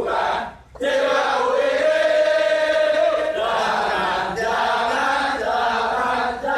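A large group of men chanting a yel-yel (Indonesian group cheer) in unison, in rhythm. There is a brief break just after the start and one long held note about two seconds in.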